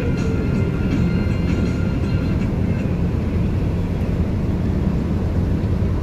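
Intercity passenger coach on the move: a steady low engine and road rumble.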